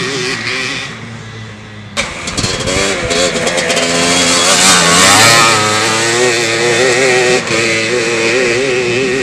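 Yamaha Blaster's two-stroke single-cylinder engine running through an FMF aftermarket exhaust pipe. It drops quieter for a moment about a second in, comes back sharply at about two seconds, and revs up to a peak about five seconds in before settling.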